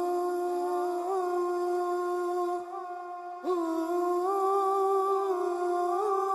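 Soundtrack music: a single voice humming long held notes with small ornamental turns, breaking off about two and a half seconds in and starting a new phrase with an upward slide about a second later.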